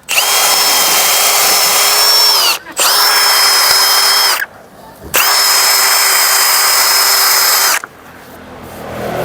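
Electric drill spinning a foam polishing pad loaded with polishing paste against a plastic headlight lens, running with a steady whine in three bursts with short pauses between them, the pitch dropping as the first burst ends.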